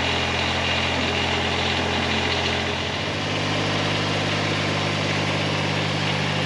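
Kubota BX1870 subcompact tractor's three-cylinder diesel engine running steadily as the tractor backs away from its detached front-end loader. About three seconds in, the pitch of its hum shifts.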